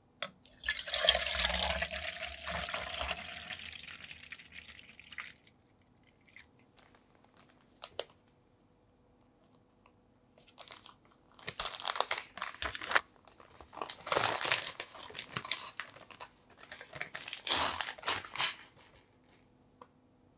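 Liquid poured into a plastic measuring jug for about four seconds, fading away near the five-second mark. Later come several spells of plastic-bag crinkling as a bag of baking ingredients is handled and spooned from.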